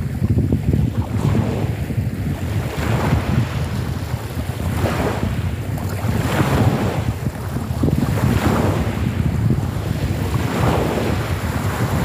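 Small waves breaking and washing onto a pebble shore, swelling every couple of seconds, under a steady rumble of wind on the microphone.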